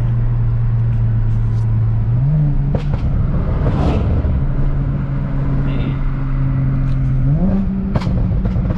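BMW 335i's N54 3.0-litre inline-six, converted to a single turbo, heard from inside the cabin running at steady revs. Its pitch steps up twice, about two seconds in and again near the end, as the revs rise. A few sharp clicks or pops come in between.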